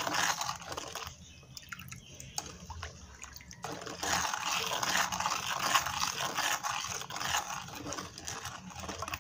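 A spoon stirring water in a plastic bowl, swishing the water round to dissolve lumps of tequesquite. The stirring eases off about a second in and picks up again strongly at about four seconds.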